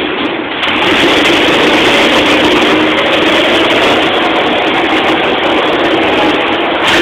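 Go-kart engines running on the track: a loud, steady mechanical drone.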